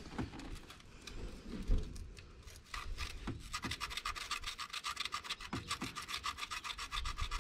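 A point file rasping back and forth across the ignition contact points inside the distributor, in quick, even strokes that start about three seconds in after a few light knocks. The points are pitted and rough and are being filed clean.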